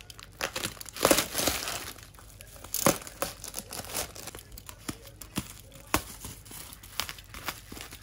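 Plastic mailer bag and bubble wrap crinkling and rustling as they are handled and pulled open, in irregular crackles, loudest about a second in and again near three seconds.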